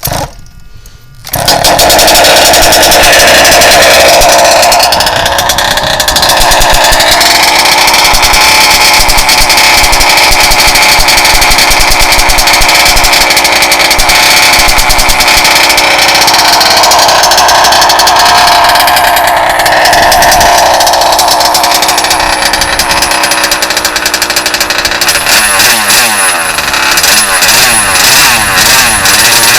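RCMAX GT90 two-stroke petrol engine of an HPI Baja RC truck catching about a second in and running loud and steady, warming up; near the end the revs rise and fall.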